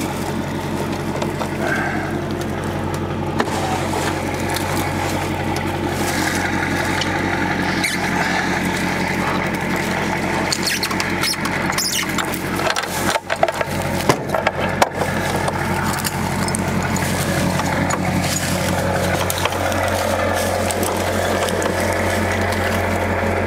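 A vehicle engine idling steadily; its pitch pattern shifts about three-quarters of the way through.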